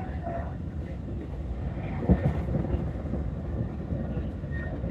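Commuter electric train running between stations, heard from inside the carriage as a steady low rumble, with one sharp knock about two seconds in.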